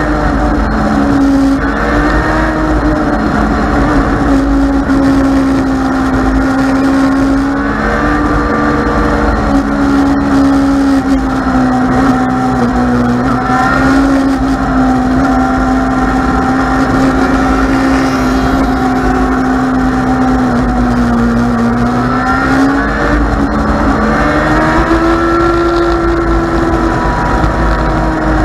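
Dwarf race car's motorcycle engine running at speed around an oval track, heard on board with wind buffeting the microphone. The engine note sags twice, about twelve and twenty-one seconds in, as the car eases through the turns, then climbs again as it accelerates.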